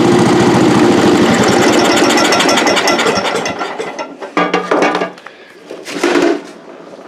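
Cub Cadet 108 lawn tractor's single-cylinder engine running steadily, then dying away about three to four seconds in. Two brief bursts of sound follow.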